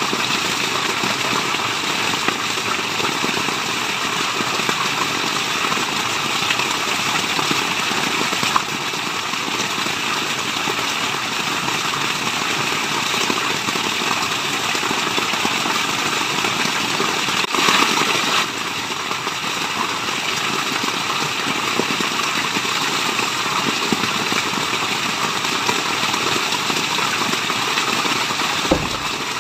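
Waterfall rushing in a steady, dense wash of falling water, with a brief louder surge about eighteen seconds in.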